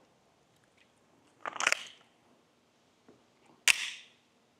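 Two sharp pops about two seconds apart, the second louder: a suppressed .22 LR pistol (SIG P322 with a Dead Air Mask HD suppressor) firing subsonic rounds, each report trailing off in a short echo.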